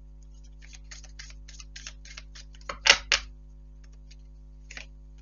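Tarot cards being handled: a quick run of light clicks and flicks about one second in, then a louder double snap of cards near three seconds, and a few soft clicks later.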